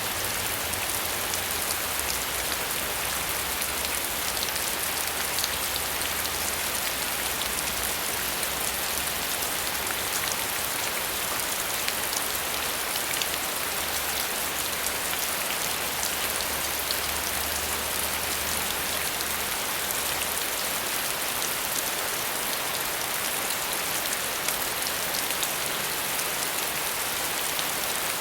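Steady rain: a dense even hiss of falling drops with fine patter on a surface. A faint low rumble lies underneath and drops away about two-thirds of the way through.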